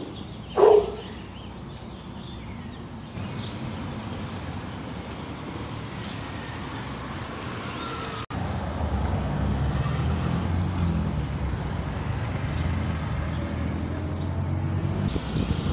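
Street traffic: cars driving along the road, with a low engine rumble that gets louder about halfway through. A short loud sound comes just after the start.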